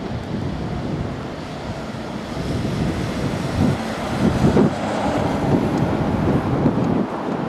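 Wind rumbling on the microphone over road traffic noise, growing louder from about three seconds in.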